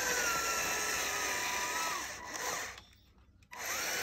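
Battery-powered motor of a remote-control toy tractor whining under heavy load, its pitch sagging slightly. It cuts out about two seconds in, gives a short spurt, goes quiet for under a second, then starts whining again near the end: the motor is straining and stalling because the battery is running down.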